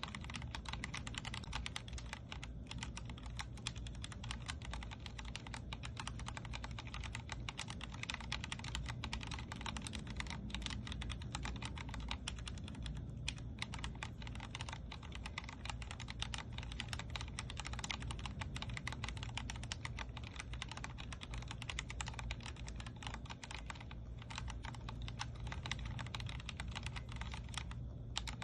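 Continuous fast typing on a Vortex Core 40% mechanical keyboard with linear Cherry MX Speed Silver switches: a dense, even stream of keystroke clacks with a few brief pauses, over a steady low hum.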